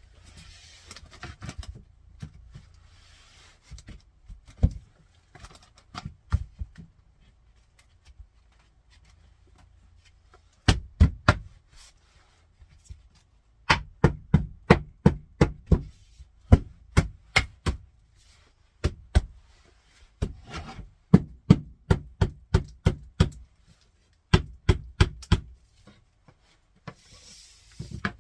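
A mallet knocking engineered hardwood flooring planks into place, in runs of sharp wooden knocks about three a second, with short pauses between the runs.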